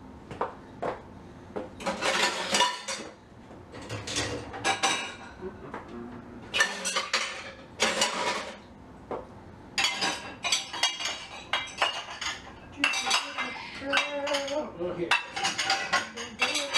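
Dishes and cutlery being handled at a kitchen sink and dishwasher racks: repeated clinks and clatters of plates and silverware, coming in short bunches and busiest in the second half.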